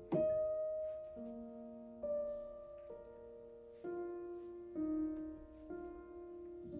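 Slow, soft piano music, a new chord struck about every second and left to ring out, with a short knock just at the start.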